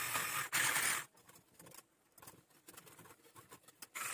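Electric hand mixer whisking batter in a glass bowl. It runs steadily and briefly louder for about a second, then cuts out to a stretch of faint ticking, and starts running again near the end.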